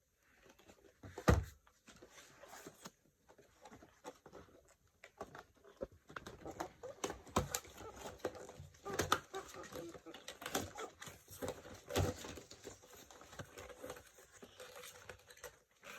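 Hands handling a toy's plastic and cardboard packaging and small doll accessories: irregular clicks, knocks and rustles, with one sharp knock about a second in and busier handling after that.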